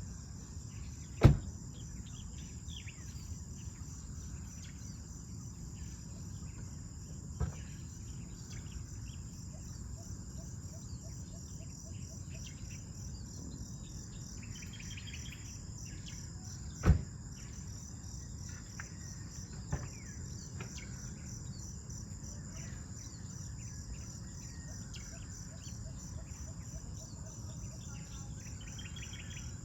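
An outdoor ambience of insects trilling steadily with a fast, even pulse, and birds chirping here and there over a low rumble. Two sharp knocks stand out, about a second in and again around seventeen seconds, with two fainter ones between.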